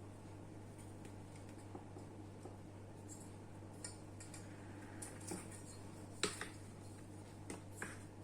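Scattered light clicks and taps of small hard objects being handled, the sharpest about six seconds in, over a steady low hum.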